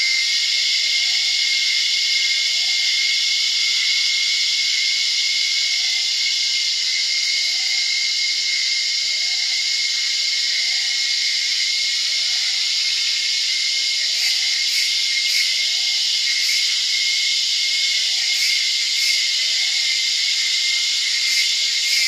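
Dense, steady cicada chorus with a high ringing tone, and distant birds calling; one bird repeats a short rising note every second or so.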